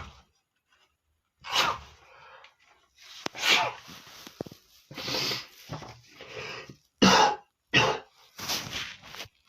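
A man with the flu sneezing over and over: about eight loud bursts in a row, closer together near the end.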